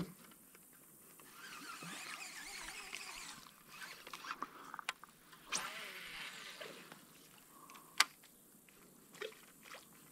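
Fishing tackle being worked from a kayak: two short spells of faint reel and line noise, with a few sharp clicks, the sharpest near the 8-second mark.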